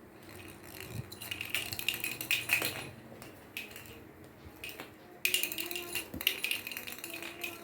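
A cat's toy ball clinking and rattling in quick, irregular clicks as the cat bats it about, in two spells with a short lull between them.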